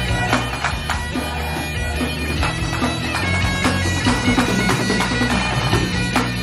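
Great Highland bagpipes playing a tune over their steady drones, with pipe-band snare drum strokes and other drums beating along.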